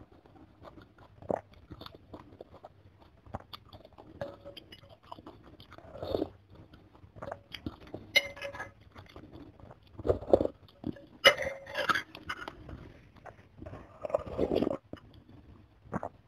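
Close-miked eating of chicken soto with glass noodles: slurping up noodles and chewing, in irregular wet bursts. The loudest bursts come a little past the middle.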